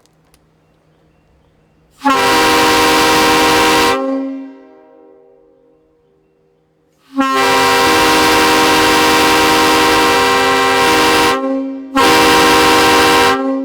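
Homemade PVC replica of an early-style Nathan K5HL five-chime air train horn, tuned to G, sounding a loud chord in three blasts: one of about two seconds, a longer one of about four seconds, then a short one near the end.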